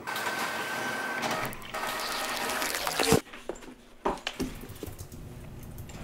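Printer running as it prints and feeds out a sheet: a steady mechanical whir with a faint high tone, with a brief pause partway, stopping with a sharp clunk about three seconds in. A few faint clicks follow.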